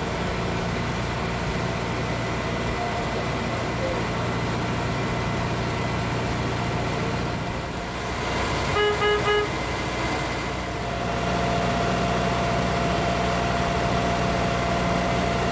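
Water taxi engine running steadily, with a boat horn giving three quick toots a little past halfway.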